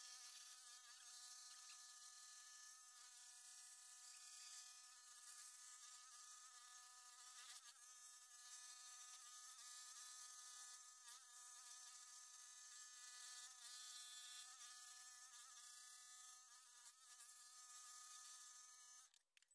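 Scroll saw running and cutting a walnut blank: a faint, steady buzz of several stacked tones that cuts off near the end.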